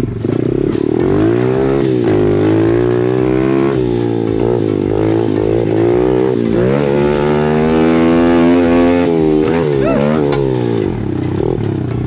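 Pitster Pro 110 pit bike's single-cylinder four-stroke engine ridden hard, its note climbing and dropping again and again as the throttle is worked. Short rattling knocks from the ride come through over it.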